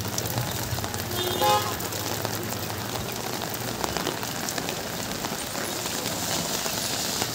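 Steady rain hissing on a wet street, with a motorcycle engine humming low for the first few seconds before it fades. A brief loud pitched sound comes about a second and a half in.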